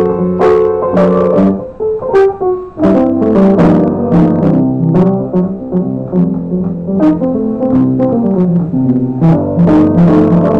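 Upright piano being played, chords and melody notes struck in a continuous passage that thins for a moment about two seconds in, then becomes fuller.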